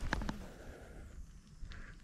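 A spinning rod and reel being cast: two sharp clicks at the start, then a faint hiss.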